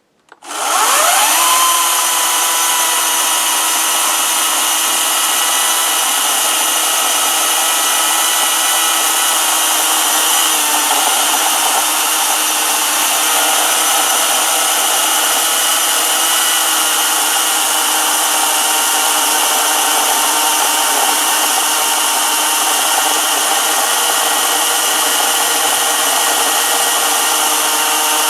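Greenworks battery-powered electric chainsaw starting about half a second in with a quick rising whine, then running steadily at full speed as it cuts through a large oak limb.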